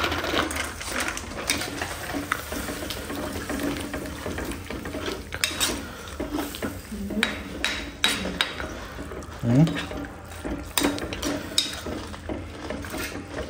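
A metal ladle stirring and scraping through simmering vegetables in a kadai, with irregular clinks of metal on metal and a light sizzle.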